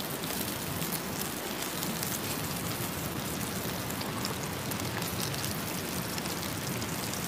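Pieces of marbled beef steak sizzling in a frying pan on a gas camp stove: a steady hiss with fine crackling of the fat.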